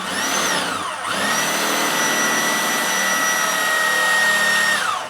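Electric hand drill drilling out a rivet on a washing machine motor's housing. It slows and drops in pitch about a second in, spins back up and runs steadily, then winds down near the end.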